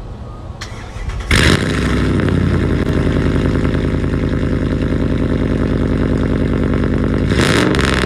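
Dodge Dakota pickup's engine starting about a second in, then idling loud through a straight-pipe exhaust that ends under the truck. It gives a quick rev near the end.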